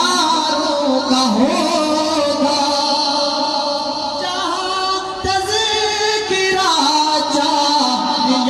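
A man's voice singing an Urdu manqabat in praise of the Prophet's Companions into a microphone, drawing out long held notes that slide from one pitch to the next.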